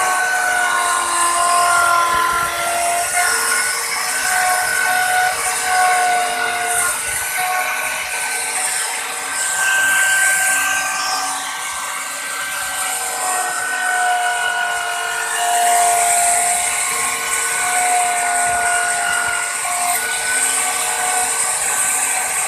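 Handheld electric plunge router running at high speed with its bit cutting grooves into wood: a loud, steady whine over a high hiss, its pitch wavering slightly as the cut loads the motor.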